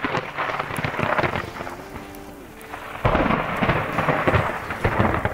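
Thunder from a rapidly intensifying thunderstorm, crackling and rumbling. It eases off mid-way, then a sudden loud clap breaks about three seconds in and rumbles on.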